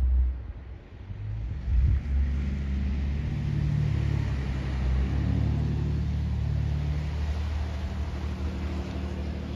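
Motor vehicle engine running steadily close by, a low rumble of deep tones that sets in about a second and a half in. A gust of wind buffets the microphone at the start.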